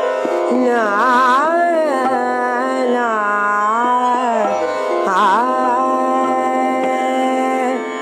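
A woman singing a slow song, her held notes wavering and bending in ornamented turns, over a steady instrumental backing with a drone.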